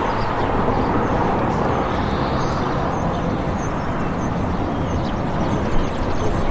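Town street ambience: a steady wash of traffic noise with a low rumble, and a run of faint, short high chirps through the middle and latter part.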